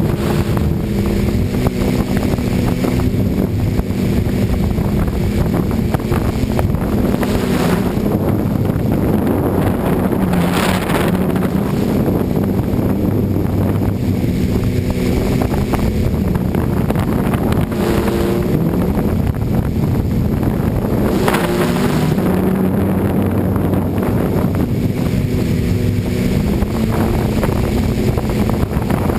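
Quadcopter's electric motors and propellers whirring steadily, heard from the camera on board. The pitch drifts up and down now and then as the motors change speed.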